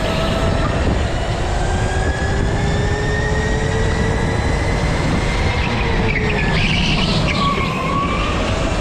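Go-kart's drive motor whining under way, its pitch slowly rising and dipping with speed through the corners, over a heavy rumble of tyres and chassis, with a brief hiss about seven seconds in.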